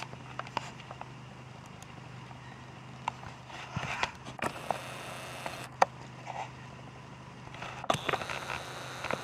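A steady low hum under scattered knocks, scrapes and clicks from people moving about and handling gear on a wooden outrigger boat. There are two stretches of rushing noise, about four seconds in and again near the end.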